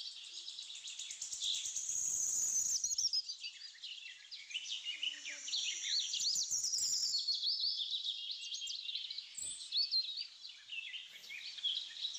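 Small birds chirping and twittering in a dense chorus of quick, overlapping rising and falling calls. A single soft knock comes about nine and a half seconds in.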